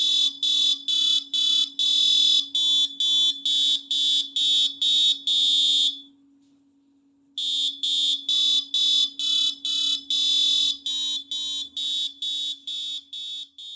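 Electronic ringtone: a quick run of short, high-pitched beeps in a simple repeating tune, about two or three a second. It pauses for about a second and a half midway, then the pattern starts again. A faint steady hum runs underneath.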